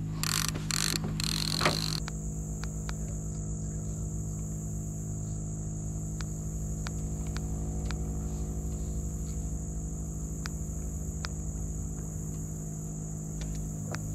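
Boat motor running steadily at low speed, a low even hum, under a constant high-pitched insect drone. There are a few faint clicks, and a short rustle of handling in the first two seconds.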